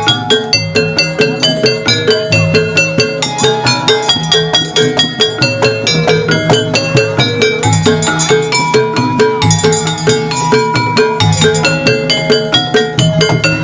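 Gamelan-style accompaniment for a kuda kepang dance: struck metal and mallet percussion playing ringing pitched notes over drums, in a quick, even beat.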